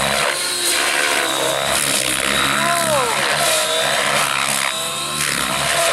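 Align T-Rex 700 radio-controlled helicopter flying, its main rotor and drive running steadily, with a few sliding tones rising and falling in pitch about two and a half to four seconds in.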